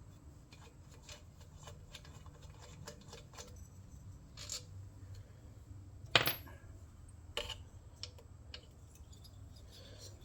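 Hand tools clicking and clinking against small metal engine parts while a tight fastener on a lawnmower engine is worked on: light irregular clicks, then a sharper metal clank about six seconds in and a smaller one about a second later.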